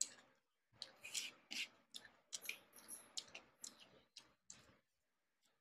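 Close-miked eating sounds: fingers squishing rice and fish curry against a plastic plate, and mouth smacks from chewing. They come as a run of short, faint clicks and wet smacks, with a pause near the end.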